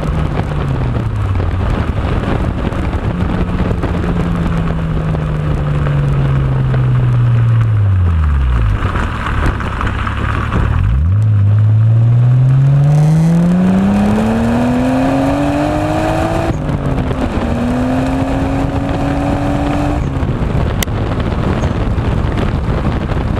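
Nissan Skyline R34 GTT's turbocharged RB25 straight-six heard at the exhaust tip: the revs sink slowly as the car coasts, then climb hard under acceleration from about halfway, dip briefly at a gear change and climb again until the throttle is lifted near the end. Wind noise over the microphone throughout.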